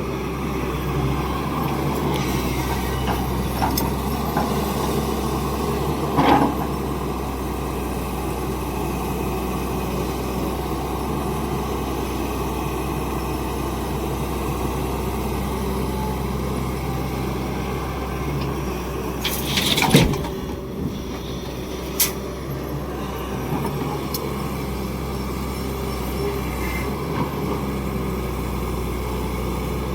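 Excavator's diesel engine running steadily during truck loading, with a knock about six seconds in, a louder knock about twenty seconds in, and a sharp short one just after.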